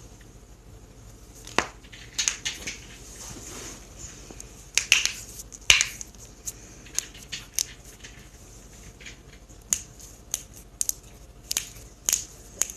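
A person cracking their own joints during a self-adjustment: a string of sharp, irregularly spaced pops and cracks, the loudest about six seconds in, with smaller clicks after it.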